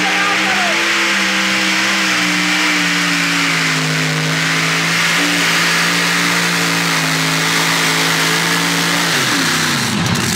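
Modified pulling tractor engine at full power dragging a weight-transfer sled. The note holds nearly steady and dips slightly as the load builds, then the revs fall away sharply about nine seconds in.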